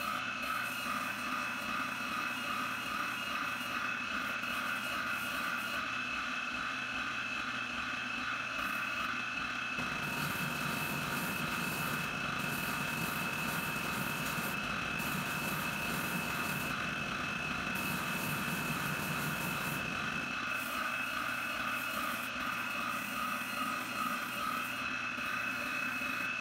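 Benchtop spindle sander running with a steady whine while spalted maple staves are held against its sanding drum. The sanding sound is fuller and heavier for about ten seconds in the middle.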